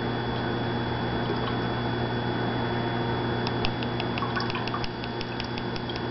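Liquid ale yeast (Wyeast 1178 Ringwood) pouring from its foil pack into a glass flask of wort, over a steady background hum. From about halfway through it comes in a quick run of drips, about five a second, as the pack is squeezed empty.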